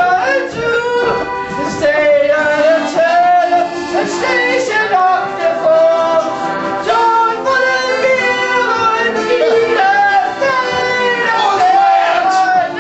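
A song: singing with held, wavering notes over musical accompaniment.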